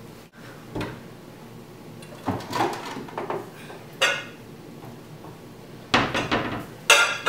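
Kitchen handling sounds: scattered knocks of a cupboard being opened and shut, then the clink and clatter of a glass measuring cup being handled. The clinks come thicker near the end.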